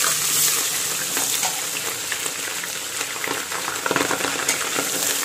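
Freshly added sliced onions sizzling and crackling in hot mustard oil in an aluminium pressure cooker, stirred now and then with a slotted metal spoon.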